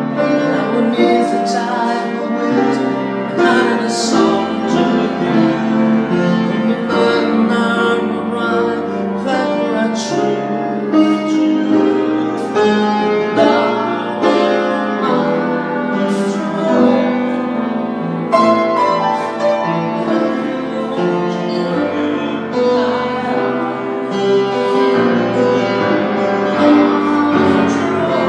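Schafer & Sons grand piano being played solo, a continuous flow of chords and melody.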